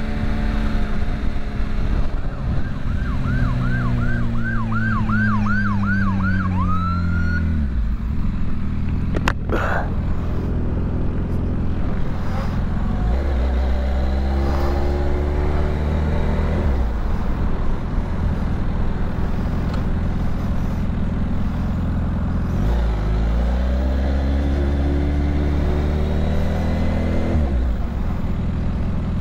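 Kawasaki Ninja H2 SX SE motorcycle's supercharged inline-four heard from the rider's seat, slowing and then twice pulling up through a gear before easing off. A few seconds in, a police siren yelps rapidly for about four seconds, about two and a half wails a second, and there is a sharp click around nine seconds in.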